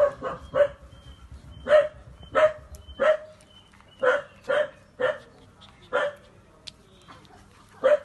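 A dog barking in short, sharp yelps, about a dozen at irregular intervals of half a second to a second.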